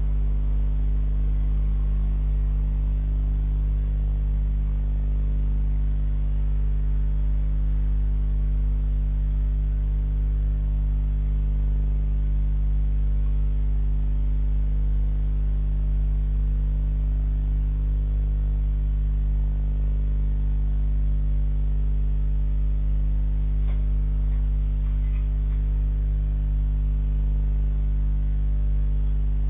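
Steady electrical mains hum on a CCTV camera's audio: a low buzz with a stack of evenly spaced overtones that never changes in pitch or level. A couple of faint ticks come near the end.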